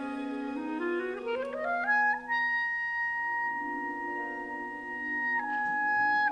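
Solo clarinet with orchestra: a held low note, then a quick rising run up to a long high held note that steps down slightly near the end, with orchestral strings sustaining softly underneath.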